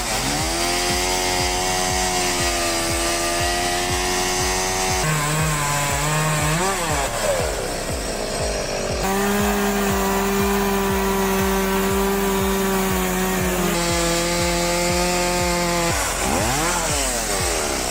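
Chainsaw mill cutting lengthwise through a log: the chainsaw engine runs at high revs under load. Its pitch sags and recovers twice as the load changes.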